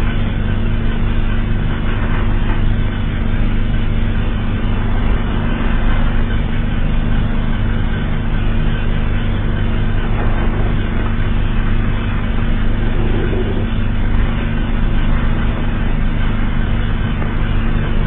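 Loud, steady low alarm drone: several unchanging low tones over a dense rumbling hiss.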